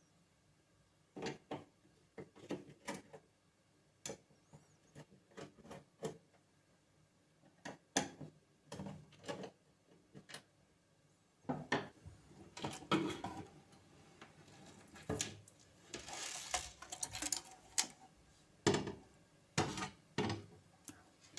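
Irregular clicks, taps and knocks of small hardware parts and tools being handled and fitted by hand, with a few short stretches of scraping or rustling.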